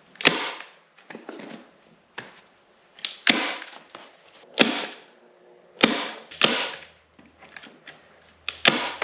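Staple gun firing into boat carpet, about nine sharp shots spaced irregularly about a second apart, each with a short rushing tail.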